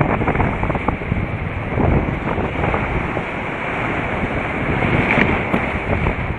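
Wind buffeting an action camera's microphone, over surf breaking and washing around the kiteboarder in shallow water.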